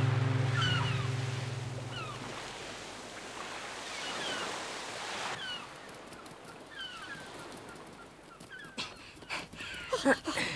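Gulls calling, short falling cries repeated about once a second, over a steady wash of surf. A plucked guitar chord dies away over the first two seconds, and a few short knocks and squeaks come near the end.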